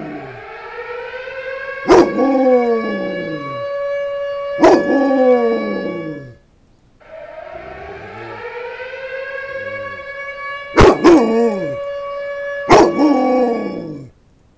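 Rottweiler howling in long, drawn-out, siren-like howls, broken several times by sharp bark-like yips whose pitch slides down. The howling stops briefly about halfway through.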